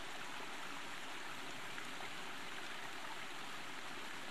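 Faint, steady rushing of a creek's flowing water, even and unbroken.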